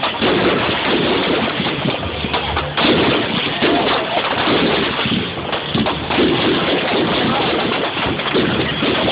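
Fireworks going off in a dense barrage: many bangs and crackles in quick succession with no break, heard through a phone's microphone.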